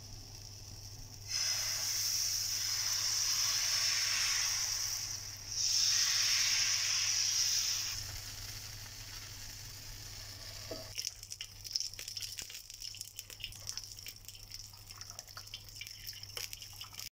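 Dosa batter sizzling on a hot iron tawa as oil goes on: a loud steady hiss for several seconds, with a brief drop about halfway. The hiss then fades, and light crackling follows near the end.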